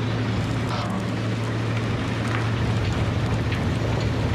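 Diesel machinery on a gold-mining dredge barge, the excavator and wash plant, running steadily with an even, low hum.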